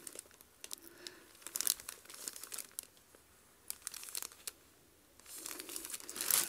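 Clear plastic bag around a pair of denim jeans crinkling off and on as hands handle it, with a brief lull in the middle and louder, denser crinkling near the end.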